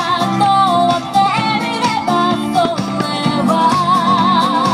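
Music with a singing voice: a melody with wide vibrato over steady accompaniment, the held vibrato note near the end.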